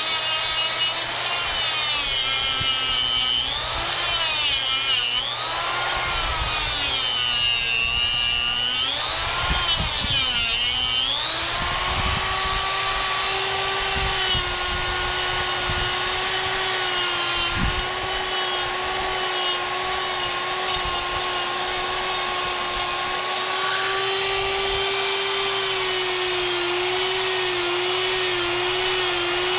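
Harbor Freight Hercules 1/4-inch, 120 V electric die grinder running while cutting into wood. Its motor pitch drops and recovers again and again as the bit bites under load, then holds a steady whine through the second half.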